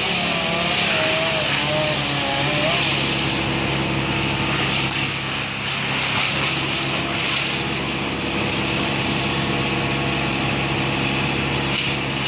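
Small engine running steadily at an even speed, with no revving or cutting.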